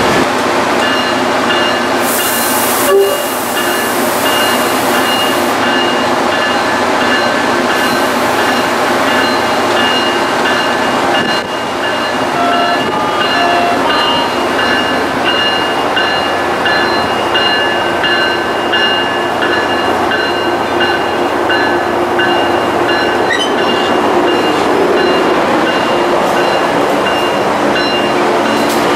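Tri-Rail bilevel commuter train at close range, starting to move with its coaches rolling past: a steady mechanical whine over a dense rumble throughout, with a short loud hiss about two seconds in.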